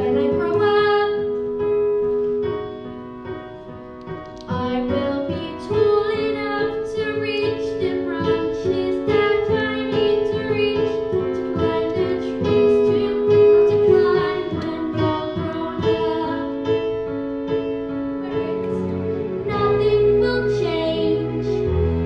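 Piano music, a run of struck notes over held tones, as a song's accompaniment.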